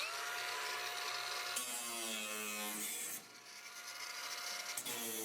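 Small electric power tool motor spinning up to a steady whine, then working on metal, its pitch shifting and dropping under load and speeding up again near the end.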